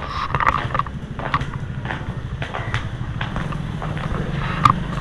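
Footsteps on a tiled floor: irregular light clicks and scuffs, with a couple of short squeaks, over a steady low rumble.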